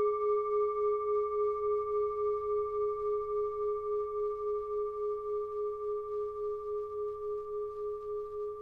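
A singing bowl rings after being struck, one sustained tone that wavers in level about three times a second and slowly fades.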